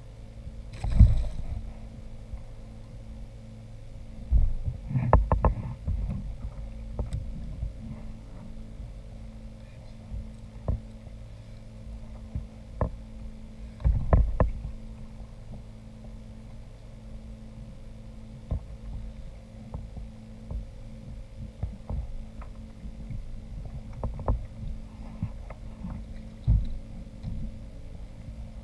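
Knocks and thumps on a fishing kayak's hull over a steady low hum, with the loudest bumps about a second in, around five seconds and around fourteen seconds.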